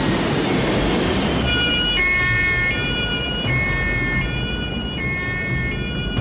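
Two-tone emergency-vehicle siren alternating steadily between a high and a low pitch, coming in about a second and a half in over the noise of traffic.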